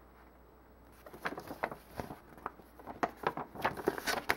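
A large paper instruction sheet being handled and folded up by hand: an irregular run of crisp rustles and crackles starting about a second in.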